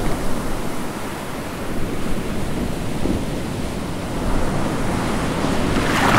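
Ocean waves washing, a steady rushing noise that swells louder just before the end.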